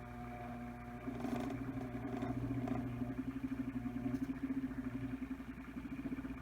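Small electric motor of a tumbler cup turner running with a steady hum, which turns into a fast, even pulsing about a second in.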